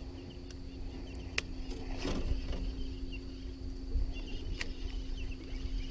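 A baitcasting reel is cranked as a topwater lure is worked back across the water, with a few sharp clicks along the way. A steady low hum runs underneath, and small birds chirp faintly.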